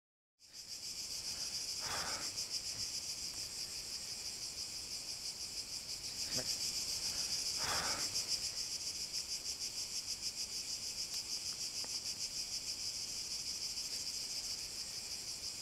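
Cicadas buzzing in a dense, steady summer chorus with a fast, even pulsing, fading in about half a second in. Twice a brief, softer sound rises under it.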